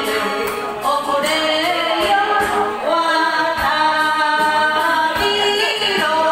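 A woman singing an enka song into a microphone over a karaoke backing track, with long held notes.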